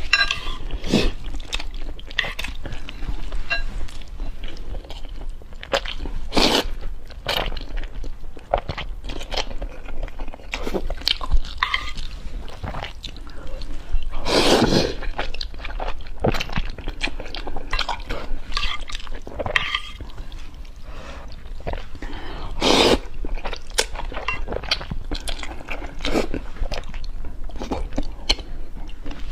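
A person eating noodles and eggs close to the microphone: irregular short chewing and mouth sounds, over a steady low hum.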